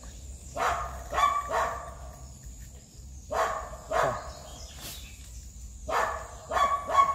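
A dog barking in three short bouts of two to four barks each.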